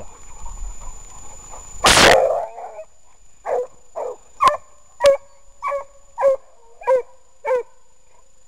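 A hunting dog barking steadily, eight barks about half a second apart, giving tongue on a wild boar. A loud short burst of noise comes about two seconds in, before the barking.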